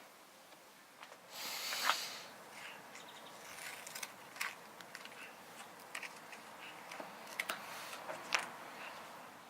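Handling sounds at a workbench: scattered light clicks and taps, with a short hissing burst about a second and a half in and another softer one near the end.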